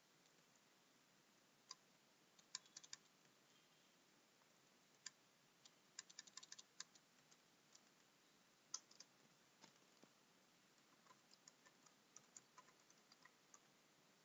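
Faint computer keyboard keystrokes: single taps, a few at a time, and a quick run of typing about six seconds in.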